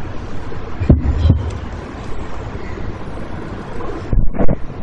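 Steady hiss and low hum of a handheld microphone system with nobody speaking, broken by a few soft low thumps about a second in and again near the end.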